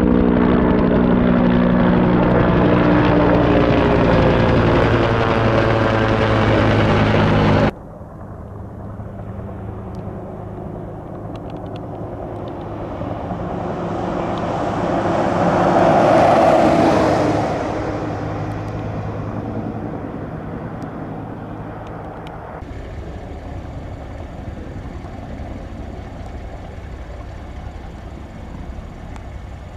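Firefighting helicopters flying water buckets: a loud, steady turbine and rotor sound whose pitched tones slide slowly downward, breaking off suddenly about eight seconds in. An aircraft then passes, swelling to its loudest about halfway through and fading away, leaving a quieter, steady distant rotor drone.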